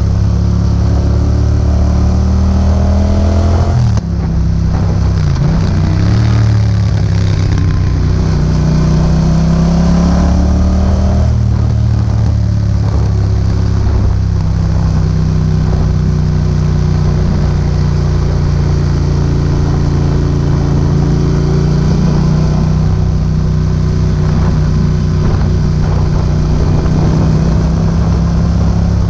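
Yamaha MT-07's parallel-twin engine through an Akrapovic exhaust, pulling up through the revs, dropping briefly about four seconds in and climbing again, then settling into a steady cruise from about twelve seconds in. Wind noise rushes on the microphone throughout.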